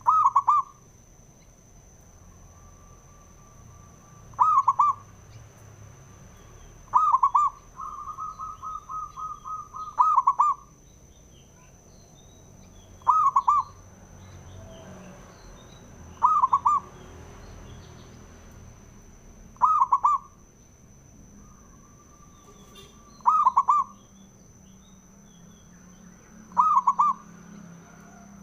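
Zebra dove (perkutut) cooing: a short, loud, rolling coo repeated about every three seconds, with a run of quieter rapid notes in between once, about eight seconds in.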